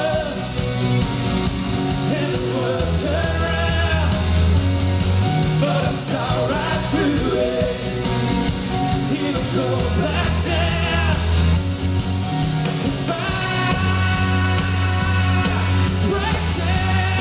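Rock band playing live: electric guitars and bass guitar with a man singing the melody over a steady bass line.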